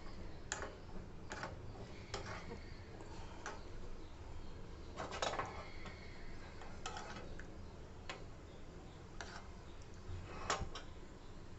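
Cashews frying in hot ghee in a pan: a faint sizzle with irregular sharp clicks and taps, every half second to a second and a half.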